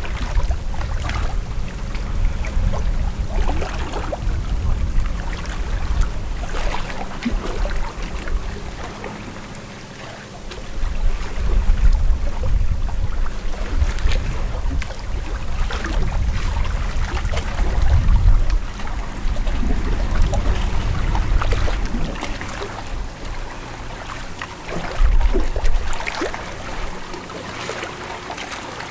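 Wind rumbling on the microphone, with small lake waves lapping and splashing irregularly at the water's edge.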